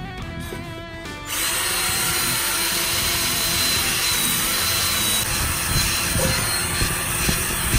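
Background guitar music for about the first second. Then a cordless drill with a twisted-wire cup brush starts up and runs steadily, scouring rust off a Griswold No. 8 cast iron skillet.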